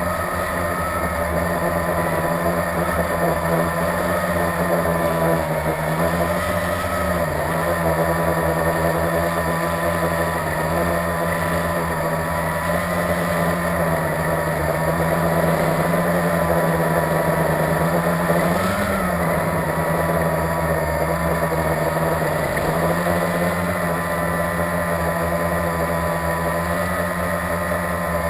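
Blade 350QX quadcopter's four electric motors and propellers buzzing steadily in flight. The pitch wavers with throttle and briefly rises twice.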